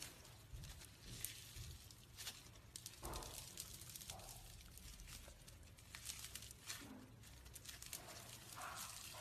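Faint, scattered clicks and crackles with soft tearing sounds, as something soft is squeezed or crushed by hand.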